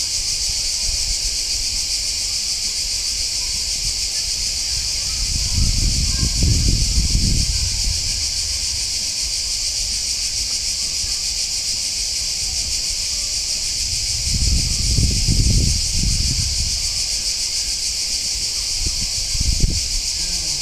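Cicadas singing in a loud, unbroken high-pitched chorus. A low rumble swells twice for a couple of seconds each, with a brief one near the end.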